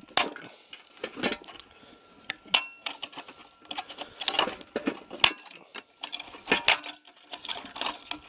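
Irregular clicks, knocks and rattles of plastic and metal parts as the yellow plastic gear tray and its metal bracket are worked loose by hand inside a cast aluminium street light housing.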